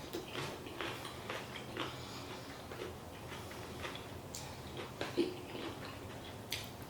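Quiet eating sounds: soft, irregular clicks and mouth noises as a chili is bitten into and chewed.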